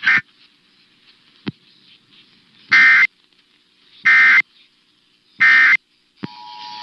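EAS end-of-message data burst: three short, identical buzzy digital bursts about a second and a half apart, sent to close the emergency alert test. A sharp click comes about a second and a half in.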